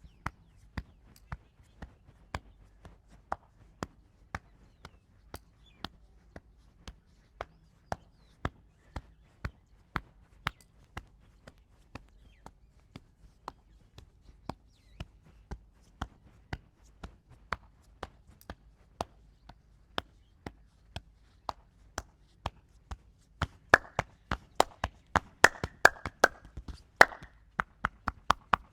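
Hand-tapping massage: palms and fingers striking a person's head or back in a steady rhythm, about one and a half slaps a second. In the last few seconds the slaps come faster and louder.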